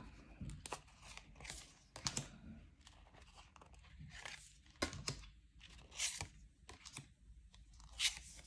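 Stiff coated oracle cards sliding against one another as they are pushed across by hand, a series of faint swishes and light rustles about a second apart.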